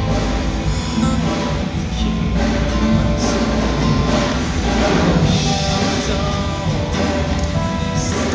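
Pop music with strummed guitar and singing.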